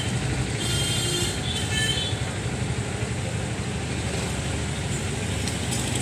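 Steady low rumble of an idling vehicle engine, with a few brief high chirps about a second in.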